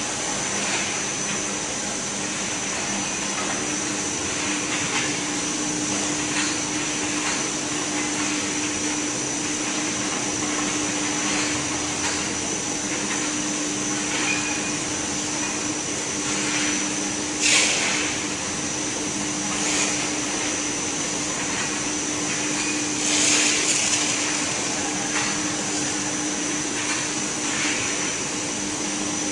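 EPE foam laminating machine running, a steady machine drone with a constant low hum and a high whine. Two brief louder rushes of hiss come a bit past halfway and about three quarters through.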